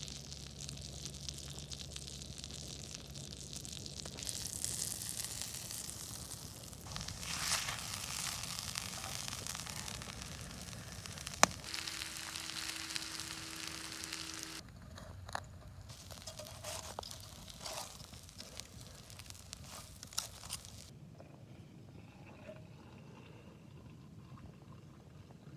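Butter sizzling in a cast-iron skillet over a wood campfire as dumplings fry, with crackles from the burning wood and one sharp snap about eleven seconds in. The sound drops to a quieter hiss near the end.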